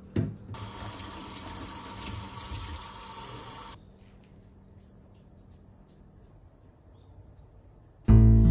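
Kitchen tap running into a plastic colander in a stainless steel sink for about three seconds, then shut off abruptly; a short knock comes just before the water starts. Acoustic guitar music begins right at the end.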